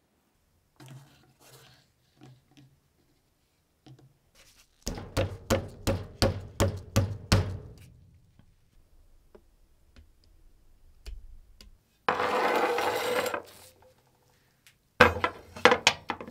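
Workshop tool work: a quick run of about ten sharp knocks, roughly four a second, lasting a couple of seconds. After a pause comes a second and a half of rubbing or scraping noise, then a few more hard knocks near the end.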